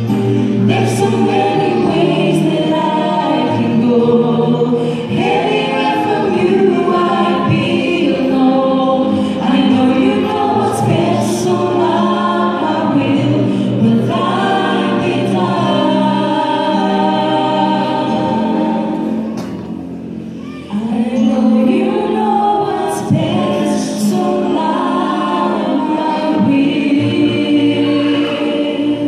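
Female vocal trio singing a gospel song in harmony through handheld microphones, with a brief lull about twenty seconds in before the voices come back in.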